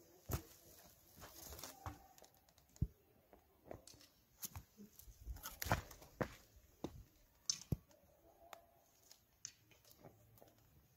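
Quiet, irregular footsteps on sandstone and grit, with crackling of dry, dead water plants brushed and trodden in a dried-up tank bed.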